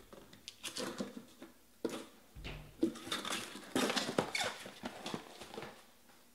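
Irregular rustling, clicks and taps of packaging being handled: sealed trading-card packs being pried out of a tightly packed cardboard hobby box.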